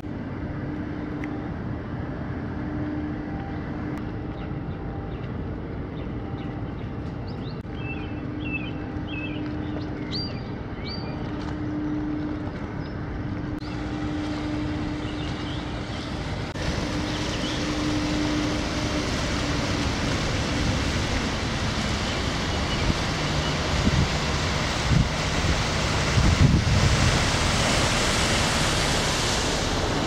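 Steady low mechanical hum with a few short bird chirps in its first half. Wind then rushes and gusts over the microphone, growing stronger from about halfway through as the hum fades out.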